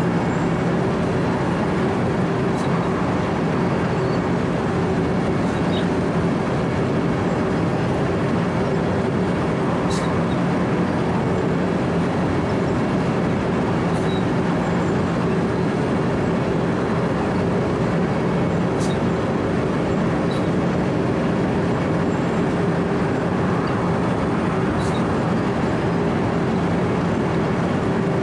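Wirtgen W 120 CFi cold milling machine running steadily under load, its diesel engine and cutting drum grinding up asphalt in a constant hum, with occasional faint sharp clicks.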